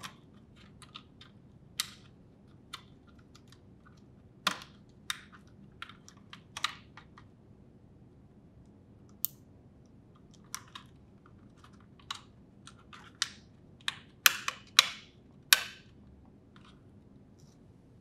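Small plastic clicks and rattles as a wire-harness connector is pushed together and a refrigerator door switch sensor is snapped into its plastic case. The clicks come irregularly, with a quick run of louder ones a few seconds before the end.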